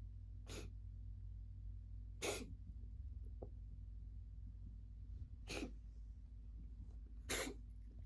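A cat making four short, sudden sneeze-like snorts through the nose, about two seconds apart, the second and last the loudest. The owners take these for reverse sneezing from a dry cold.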